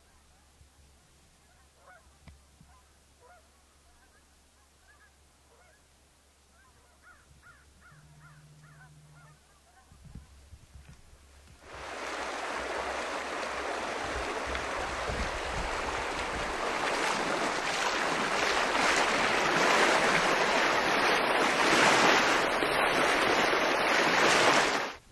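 Water splashing and sloshing loudly around legs wading through a shallow river, starting suddenly about twelve seconds in and continuing until it cuts off at the end. Before it, faint scattered bird calls over quiet.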